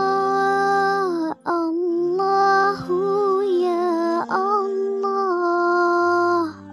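Dhikr chant: a single voice sings long, ornamented notes on 'Allah' over a steady low drone, with a short break about one and a half seconds in.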